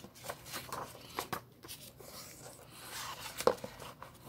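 Handling noise: paper and card rustling with scattered light clicks as record sleeves are moved about, and one sharper knock about three and a half seconds in.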